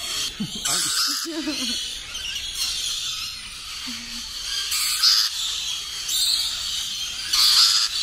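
Rainbow lorikeets screeching and chattering while they feed on a hand, a series of short rasping calls every second or so, the loudest about five seconds in and near the end.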